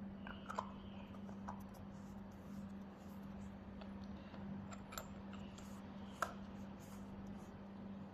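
A few faint clicks and taps of hydraulic fittings being handled, over a steady low hum.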